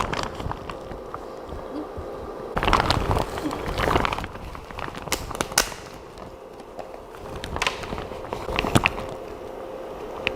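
Rustling and scattered light clicks of hands handling things, in irregular clusters, over a faint steady hum.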